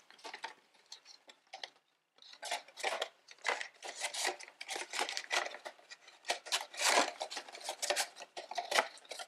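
White paperboard watch box, shipped folded flat, being unfolded and its flaps tucked into shape by hand: a run of irregular card rustles, scrapes and clicks. They are faint at first, stop briefly about two seconds in, then come thick and fast.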